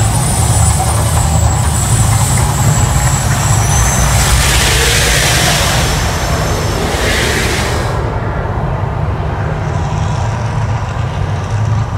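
Mirage volcano show's eruption effects: a deep steady rumble with a loud rushing whoosh of the gas fireballs from about four to eight seconds in, which cuts off suddenly, leaving the rumble running on a little lower.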